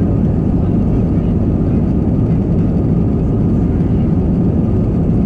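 Steady low rumble of an Airbus A321's jet engines and airframe heard inside the cabin as the jet moves on the ground before takeoff, even and unchanging.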